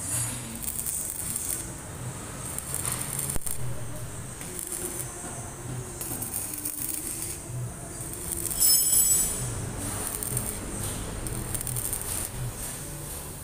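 Electric arc welder crackling and sizzling in short spells that stop and restart several times, loudest about 9 s in: welding onto a seized engine bolt that could not be undone, so it can be freed.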